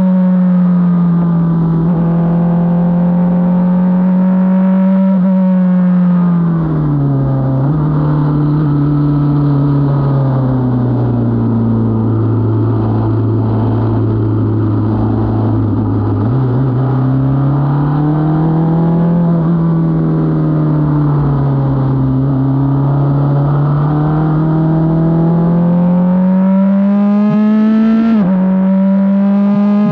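F4 single-seater's four-cylinder engine heard from the cockpit at speed on track. It holds a high note, then its pitch falls steadily under braking into a slow section and steps up with a downshift. It rises and falls again through the corners, then climbs hard near the end with one quick upshift.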